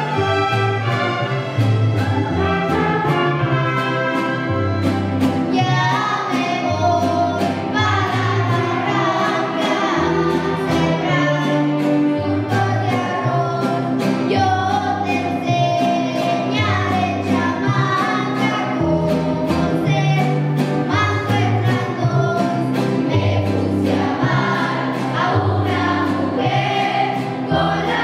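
Mariachi ensemble playing: a young girl and boy sing a duet at the microphone over violins, strummed guitars and a bass line stepping between notes in a steady rhythm.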